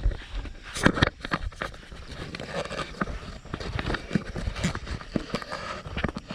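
Footsteps of someone walking, an irregular run of scuffs and thuds, with heavier knocks about a second in.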